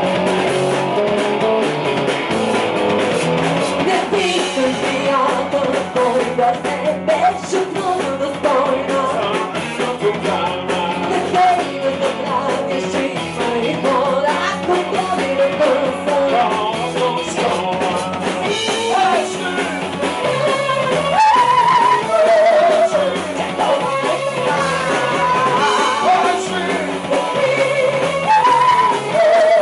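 Live rock band playing: electric guitar, electric bass and drums, with a woman singing the lead vocal.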